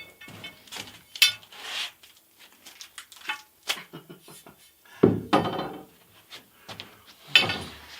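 Metal conduit and tools being handled: irregular clinks, knocks and scraping, with a heavier knock about five seconds in and another near the end.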